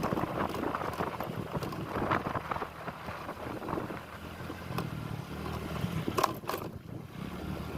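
Wind buffeting the microphone, with scattered light clicks and a low steady hum through the middle.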